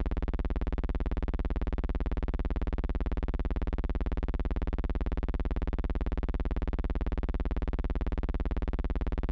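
A steady buzzing hum with a fast, even pulse, heaviest in the bass and unchanging throughout: electrical hum on an archival film soundtrack.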